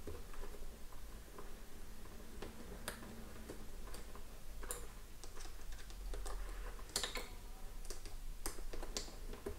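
Faint, irregular small clicks and ticks of a hex key turning the screw of a Sena 30K helmet clamp as it is tightened, with the plastic clamp and wire being handled.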